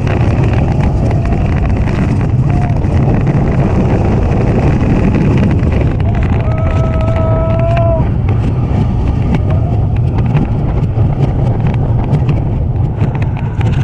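Rocky Mountain Construction wooden roller coaster train running at speed over its track: heavy wind noise on the onboard microphone over a steady low rumble and rattling clatter from the wheels. About halfway through, a rider's held shout lasts about a second and a half.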